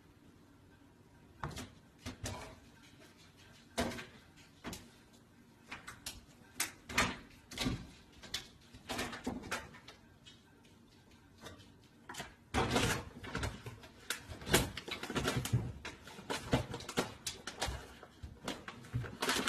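A wooden kitchen cabinet door knocking and rattling as a cat climbs and hangs from it. The knocks are irregular at first and come thick and fast in the second half.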